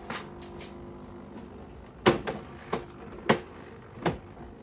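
Thermal tattoo stencil machine humming steadily as it finishes a copy, falling quiet about a second in. Then about five sharp plastic knocks and clicks as the machine's housing and the stencil sheet are handled, the loudest about two and three seconds in.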